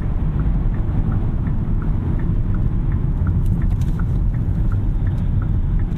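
Steady road and tyre rumble inside the cabin of a 2021 Kia K5 Hybrid on the move, with a light, regular ticking about two or three times a second from the turn-signal indicator.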